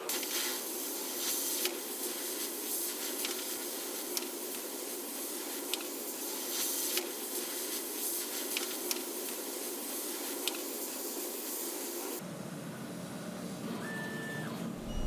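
Steady hissing noise with scattered light clicks, changing suddenly to a duller, lower noise about twelve seconds in.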